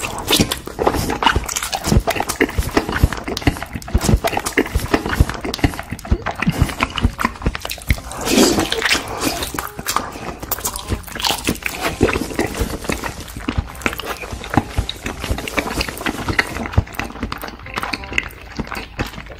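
A person chewing an oversized mouthful of salmon nigiri sushi close to the microphone: a constant run of wet mouth clicks and smacks as the fish and rice are worked down.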